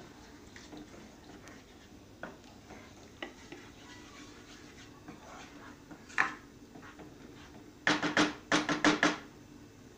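Wooden spatula stirring thick tomato-cashew gravy in a steel kadhai, mixing in the water just added to thin it, with soft scrapes and ticks against the pan. Near the end comes a quick series of louder scrapes and knocks of the spatula on the pan.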